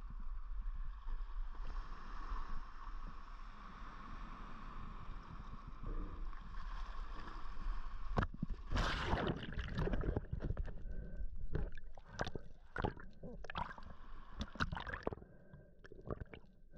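Sea water sloshing and lapping against a rock ledge. About eight seconds in there is a loud splash as a spearfisher in wetsuit and fins enters the water. After that come underwater bubbling and gurgling with scattered sharp clicks, fading near the end.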